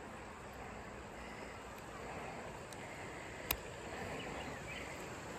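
Faint outdoor background: an even hiss of running river water and insects, with one sharp click about three and a half seconds in.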